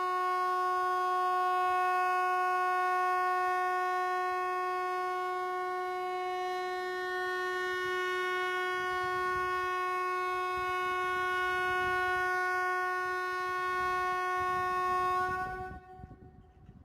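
Hesa Fredrik outdoor warning siren sounding one long, steady tone at a fixed pitch, cutting off about fifteen seconds in.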